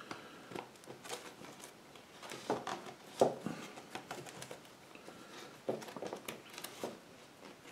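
Clear plastic binder sheets handled on a wooden table: light rustling broken by a few sharp clicks and taps, the loudest about three seconds in.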